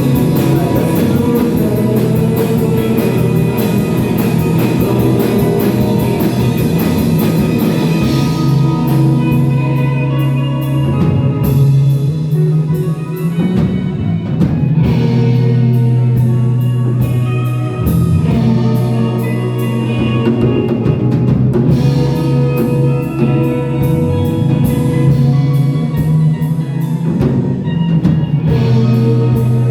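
Live band music: drums and guitar over a held low note, loud and steady, with the high cymbal wash thinning out about nine seconds in.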